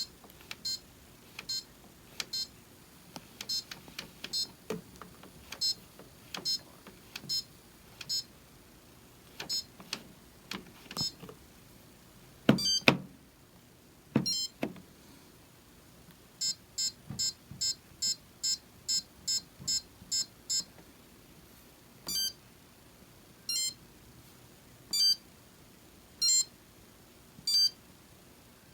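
Maytag washer and dryer electronic control panel beeping: a long series of short, high beeps, about one every 0.7 s at first, with a louder cluster about halfway through. Then comes a quick run of about two beeps a second, followed by slower, evenly spaced beeps.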